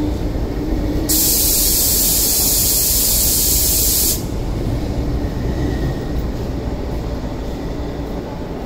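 Sharp hiss of compressed air vented from a stationary MTR electric train, starting about a second in and cutting off about three seconds later, over the steady low hum of the train.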